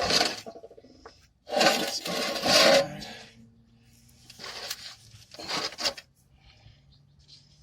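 Metal clinking and clattering of hand tools and engine parts in a few separate bursts, the loudest and longest about one and a half seconds in.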